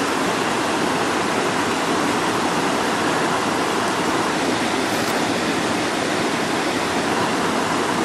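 Steady, loud rushing hiss with no breaks or changes.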